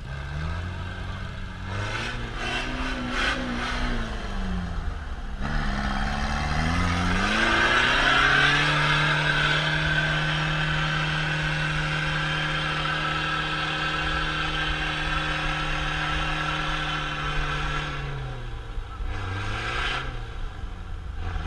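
Off-road pickup truck's engine revving hard as it climbs a muddy slope. The revs rise and fall a few times, are held high and steady for about ten seconds, and drop near the end.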